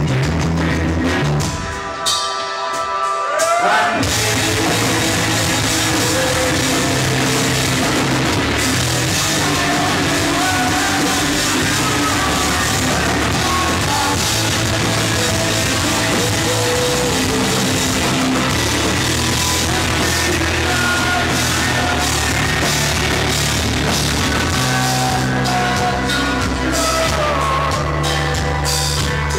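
Live rock band playing loud amplified music on a club stage, with drum kit and a singer. About two seconds in, the band briefly drops to held notes, then comes back in at full volume about four seconds in.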